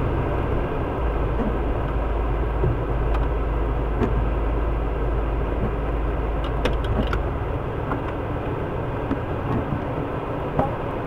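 Parked emergency vehicle's engine idling, heard from inside the cab as a steady rumble whose deepest part eases about seven seconds in, with a few light clicks as the windshield wiper sweeps.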